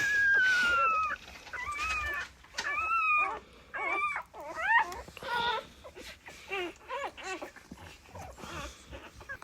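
Newborn puppies crying: a long high squeal, then a run of short, wavering whimpers and squeaks that grow fainter towards the end.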